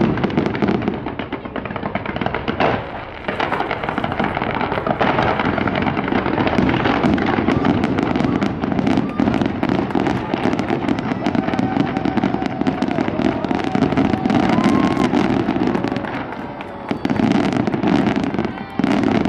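Fireworks display: a dense, continuous run of crackling and popping shell bursts, easing briefly near the end before picking up again, over a steady murmur of crowd voices.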